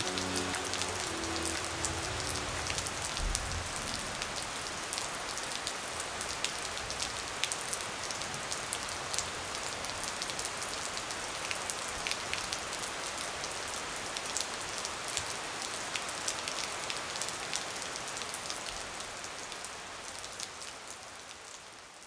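Steady rain falling: a dense hiss peppered with many sharp drop ticks, fading out near the end. The last notes of background music die away in the first few seconds.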